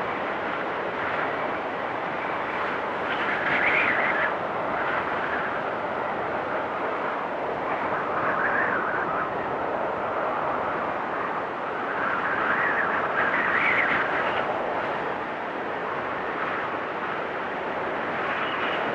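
Winter windstorm: strong wind rushing steadily, with gusts that swell higher and louder every few seconds.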